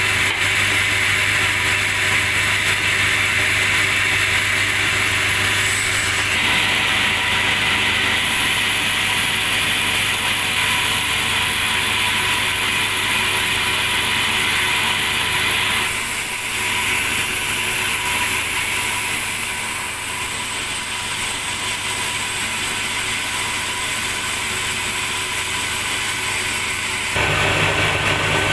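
Log sawmill machinery running steadily with a constant low motor hum and a hissing, grinding noise over it. The character shifts about six seconds in, again around the middle, and about a second before the end.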